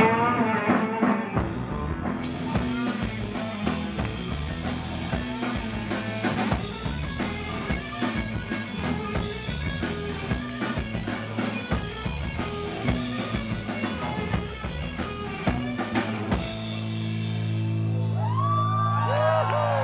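Live hard-rock band playing loud, with electric guitar, bass and a pounding drum kit. About 16 seconds in the drums stop and the band holds one sustained chord, with sliding high notes over it near the end.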